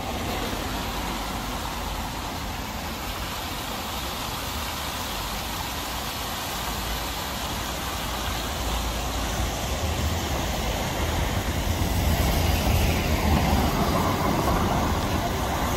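Steady outdoor noise: water splashing from a public fountain's jets, mixed with wind buffeting the microphone and distant street traffic, growing louder in the last few seconds.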